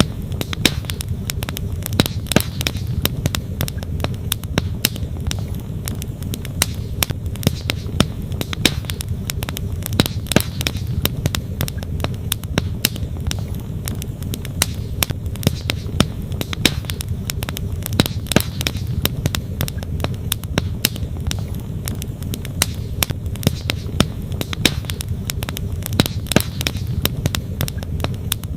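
Wood fire crackling, with frequent irregular sharp pops and snaps, over the steady low rush of a flowing creek.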